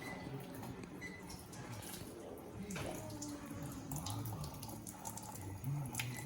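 Tap water running into a sink as hands are washed under it.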